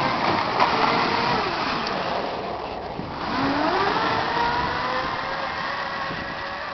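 Electric snowmobile, a converted Ski-Doo MX Z, passing close by: its motor whine falls in pitch over the first couple of seconds, then climbs again from about three seconds in as it accelerates away, over the rushing noise of the track.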